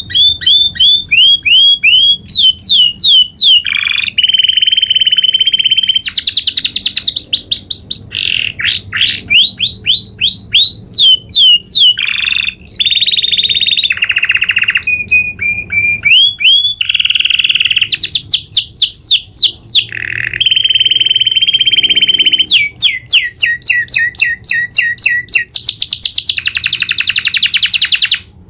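Domestic canary singing a long rolling song: fast runs of repeated rising notes alternate with held, even trills, with hardly a pause between phrases. The song stops abruptly near the end.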